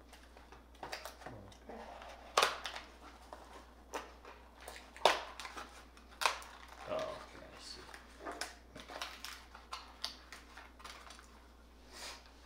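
A cardboard product box being opened by hand: scattered scraping and rustling of card, with sharp snaps of the flaps about two and a half, five and six seconds in.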